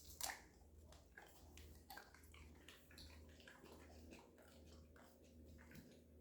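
Dog chewing grapes: faint, irregular wet clicks and smacks, with a sharper click just after the start.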